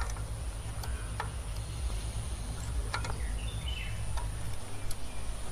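A few faint small metal clicks from fingers working the adjusting nut and cable clamp of a bicycle side-pull caliper brake, over a steady high-pitched insect drone and a low background rumble.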